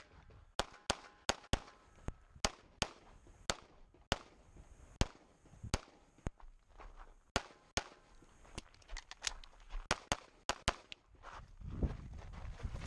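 Rapid pistol fire from a CZ75 Shadow, about twenty shots, mostly in quick pairs, with short gaps between strings. Near the end the shooting stops and footfalls and scuffing on gravel take over as the shooter moves.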